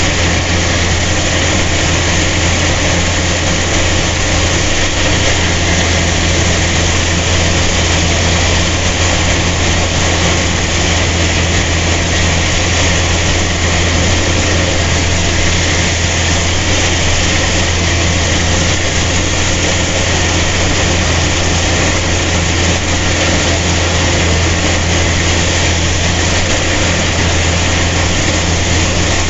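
Diesel engine of a rice harvesting machine running steadily at a constant speed, with a strong low hum under a dense mechanical clatter and hiss.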